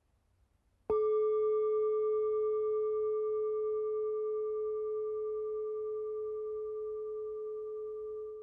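Singing bowl struck once about a second in, then ringing with one clear steady tone and fainter higher overtones that fade slowly.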